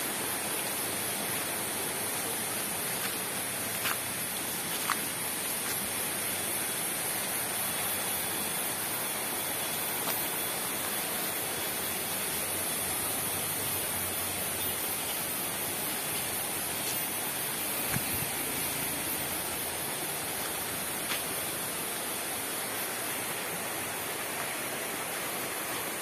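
Steady rushing outdoor background noise with an even high hiss above it and a few faint ticks.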